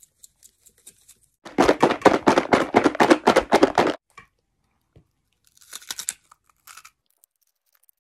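Rolled tortilla chips (Blue Takis) with spice powder rattling hard in a plastic tub for about two and a half seconds, as if shaken to coat them. A couple of seconds later comes a short crunch of a chip being bitten.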